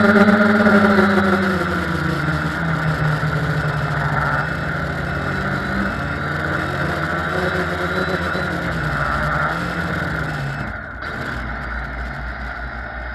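Quadcopter's electric motors and propellers humming, their pitch dropping about a second and a half in and then wavering up and down. The hum fades out about eleven seconds in, leaving a low rumble of wind.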